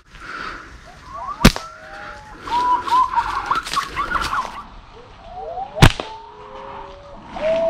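Two sharp snaps from a rubber-band slingshot being shot, about four seconds apart. Short whistled bird calls that rise and fall come between and after them.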